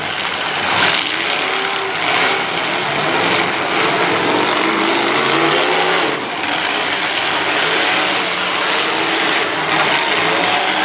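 Several demolition derby cars' engines running and revving, rising and falling in pitch, as the cars push and ram one another, with a few short knocks of impacts.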